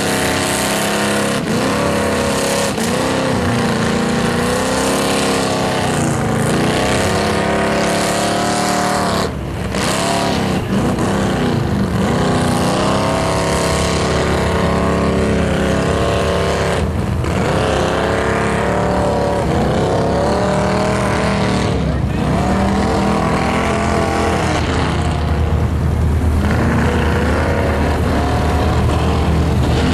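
Mega mud buggy's engine revving hard as its tyres churn through deep mud, the pitch rising and falling again and again.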